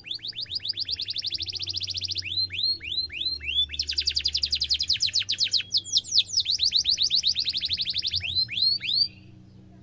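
Domestic canary singing a long song: fast rolling trills of about a dozen down-sweeping notes a second, broken by runs of slower single down-slurred chirps, stopping abruptly about nine seconds in.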